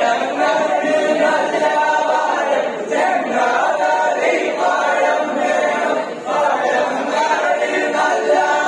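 A group of men singing a vanchippattu, the Kerala boat song, unaccompanied, in short repeated phrases.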